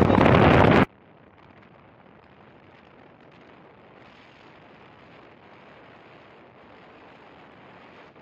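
Loud wind rush on the microphone of a camera riding on a moving motorcycle, cutting off abruptly about a second in to a faint, steady hiss.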